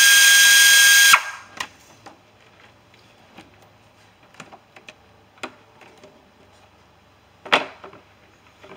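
Pneumatic air tool running with a steady high whine, loosening the band clamps on the engine's intake air tube; it cuts off a little over a second in. After that come light clicks and taps of parts being handled, with one louder knock near the end.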